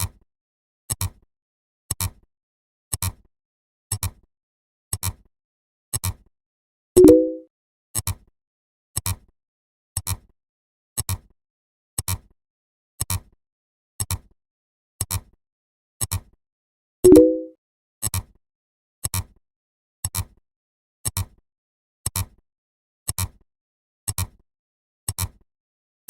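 Sound-effect ticks, one short click each second as the count advances. Twice, ten seconds apart, a louder pitched tone of under a second sounds instead, once about seven seconds in and again about ten seconds later.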